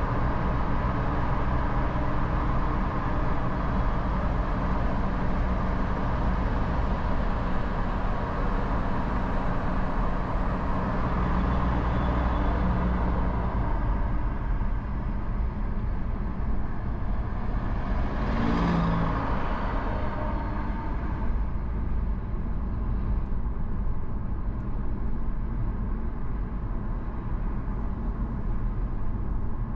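Steady road noise of a moving car heard from inside the cabin: tyre and engine rumble. About 18 seconds in, a brief louder rushing sound swells up and fades within about a second.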